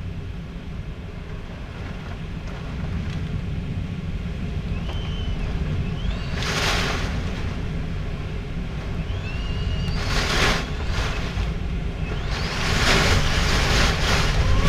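Tornado winds around a house: a steady low rumble with hissing surges of wind-driven rain, one about six seconds in, another about ten, and a longer one from about twelve seconds, the whole getting louder toward the end.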